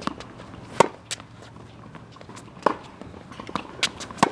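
Tennis rally on a hard court: a racket strikes the ball three times, sharp pops about a second and a half to two seconds apart, the first, about a second in, the loudest. Lighter ball bounces and footsteps come between the hits.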